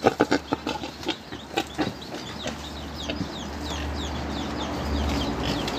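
Chickens clucking and chirping: a run of short, high, falling chirps over a low rumble, with a few sharp knocks in the first two seconds.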